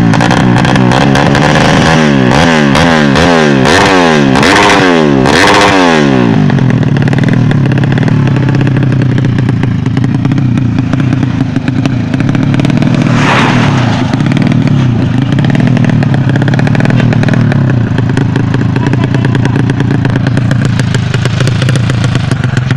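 Drag-racing motorcycle engine revved hard about six times in quick succession, each rev rising and falling in pitch. It is then held at a steady high rpm, with a short rasp about two-thirds of the way through.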